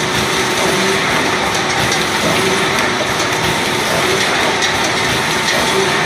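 Eye drop filling, plugging and capping machine running steadily: a continuous mechanical running noise with a faint steady hum and fine ticking.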